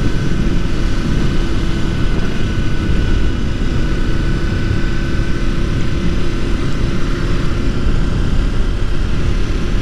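Motorcycle cruising at a steady speed: an even engine drone with wind rushing over the microphone.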